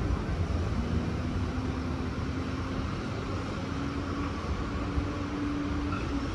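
Double-deck Tangara electric train pulling away from the platform and running off into the distance: a steady low rumble, with a faint hum that climbs slightly in pitch as it gathers speed.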